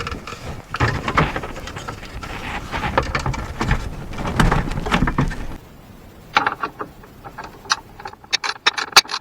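Fog light housing and its plastic parts handled and worked into place, with dense clattering and clicking. About five and a half seconds in it drops to a quieter stretch of sharp separate clicks.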